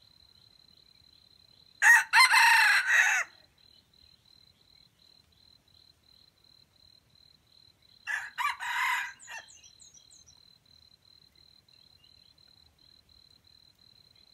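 Junglefowl rooster crowing twice: a loud crow about two seconds in and a fainter crow about eight seconds in. A faint steady high insect trill runs underneath.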